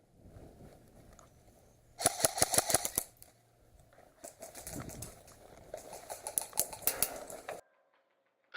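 Airsoft guns firing bursts of BBs as rapid snapping clicks. One burst comes about two seconds in and lasts about a second; a longer, ragged run of shots follows from about four seconds in and stops abruptly near the end.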